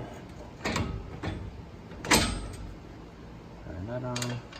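Two sharp metallic knocks about a second and a half apart, the second much louder and briefly ringing, from tools and suspension parts while a new upper control arm is fitted on a pickup truck.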